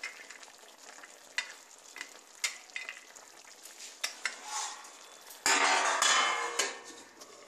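Metal spatula scraping and tapping against a metal kadai as vegetables simmering in a little liquid are stirred, over a faint sizzle. About five and a half seconds in, a knock as a steel plate goes on as a lid, followed by a louder sizzling hiss for over a second.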